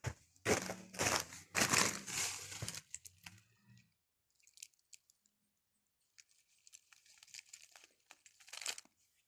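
Pine bark crunching and crackling, dense and loud for the first three seconds, then only faint scattered crackles.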